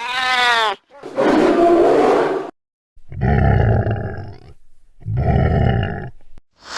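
Monster creature sound effects: a short pitched cry that rises and falls, then a rough roar of about a second and a half, then two deep roars about two seconds apart.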